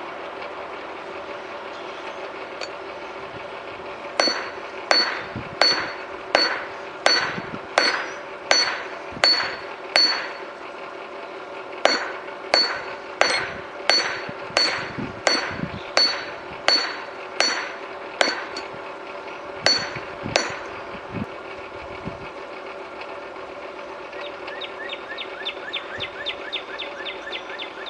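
Hand hammer striking red-hot high-carbon steel on a steel anvil: about twenty ringing blows at a steady pace of roughly one and a half a second, with a short pause partway, as the bar is forged to shape for a lathe side tool. Near the end comes a quick run of light, fast taps, over a steady low hum.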